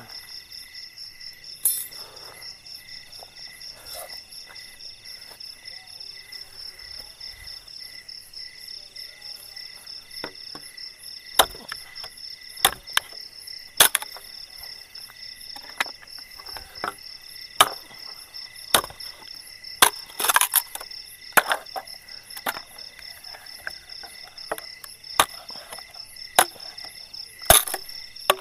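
Insects chirping steadily, with irregular sharp wooden cracks and knocks starting about ten seconds in, roughly one a second, as a long stick is broken up for firewood.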